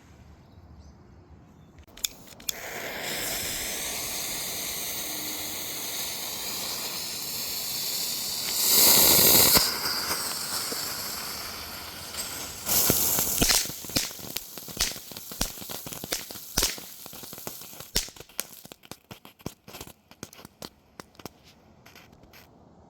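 A small ground firework hissing steadily for several seconds, spurting louder about nine seconds in and again a few seconds later, then giving off a string of sharp pops and crackles that thin out.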